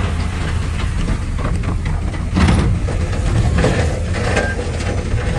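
Heavy diesel engine of earth-moving machinery running under load, a steady low drone, with irregular metallic clanks and knocks; the loudest comes about two and a half seconds in.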